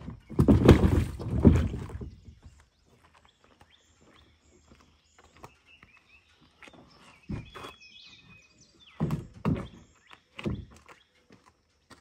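Kayak hull set down on a concrete boat ramp and scraped along it: a rough scraping for about two seconds near the start. Later come a few separate thuds and footsteps, with faint bird calls behind.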